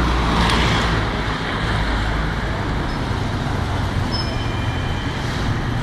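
Steady low rumble and hiss of outdoor background noise, like distant road traffic, with a faint brief high tone about four seconds in.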